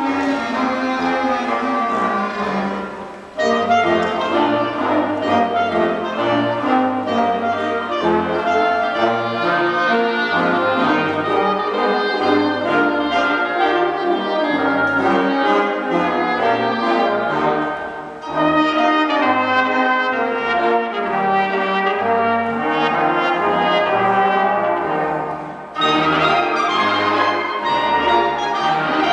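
Student concert band playing a piece together, woodwinds and brass over low bass notes. The sound dips briefly between phrases about 3, 18 and 26 seconds in.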